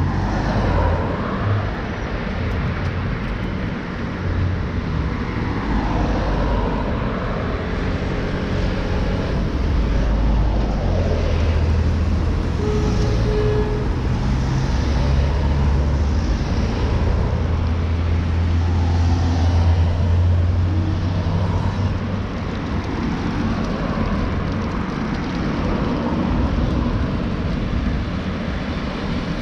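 Ride noise from a bicycle in city traffic, dominated by a steady low rumble, with passing vehicles.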